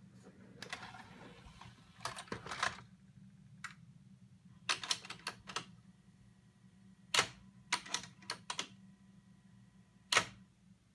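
Philips Digital Compact Cassette deck's tape mechanism clicking and clunking in irregular clusters while it reads a loaded tape. A faint steady whine runs under the clicks in the middle.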